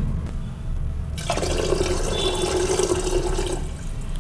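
Water poured from a cup into an aluminium pressure cooker of vegetables, a splashing pour starting about a second in and stopping near the end, over a steady low hum.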